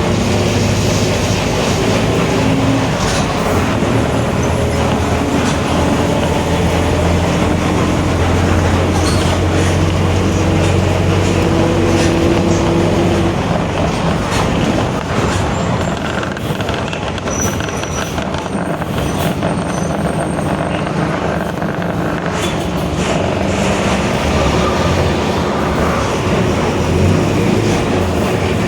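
Mercedes-Benz OF-1721 BlueTec 5 city bus under way: its diesel engine runs with a steady low drone and its differential growls, with a whine that stands out for a few seconds about ten seconds in. The level eases off a little for several seconds in the middle.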